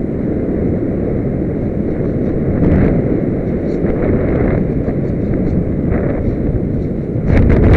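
Steady wind rushing over the microphone of a camera mounted on a Multiplex Solius RC glider in low flight, with a louder rush and a few sharp clicks near the end.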